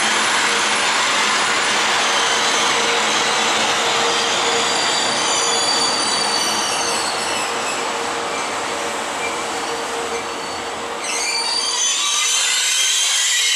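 Rake of passenger coaches rolling through the station: steady rumble of wheels on rail with a thin, high wheel squeal over it. About eleven seconds in the deep rumble drops away and a higher hiss takes over.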